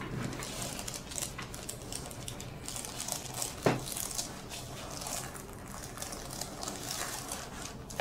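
Soft rustling and crackling of hands moving over hair and skin, with one sharp pop about three and a half seconds in: the crack of a chiropractic neck adjustment.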